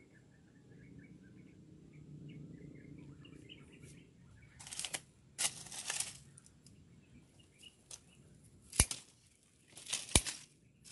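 Dry leaves and thin branches rustling in two bursts about halfway through, as the undergrowth is pushed through, then two sharp clicks near the end; faint bird chirps early on.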